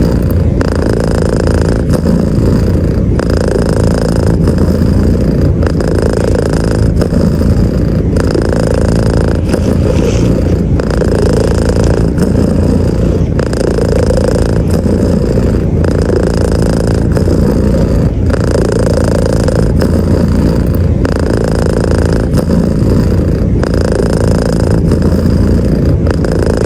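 Domestic cat purring loudly and close up, a continuous rumble whose tone shifts back and forth every second or so as the cat breathes in and out.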